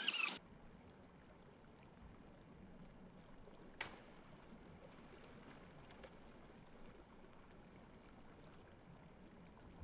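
Faint, steady hiss of a shallow creek, close to silence, with one short sharp splash of a thrown stone hitting the water about four seconds in.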